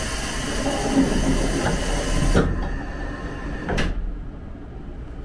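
Train's automatic side door closing: a steady hiss of air that cuts off with a knock about two and a half seconds in, then a thud as the door shuts about a second later.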